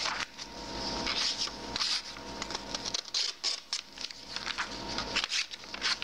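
Tac Force TF-710 folding knife's partially serrated blade pushed and dragged through the edge of a sheet of printer paper, making a run of crisp rustling and crinkling strokes as it catches on the paper instead of slicing it cleanly: the blade is not paper-cutting sharp.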